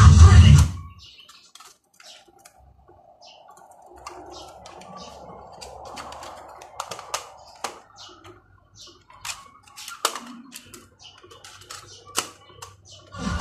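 Music from a cassette playing stops just under a second in. Scattered sharp plastic clicks and clatter follow as cassette cases are opened and tapes are handled and swapped at an Aiwa Walkman cassette player.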